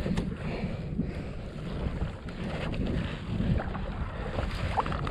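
Wind buffeting the microphone and sea water slapping against a kayak hull, with a few faint knocks.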